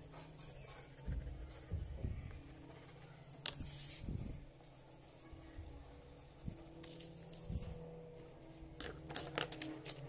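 Pencil drawing on paper: faint scratching and tapping of the lead, with a few sharp clicks from handling, clustered near the end.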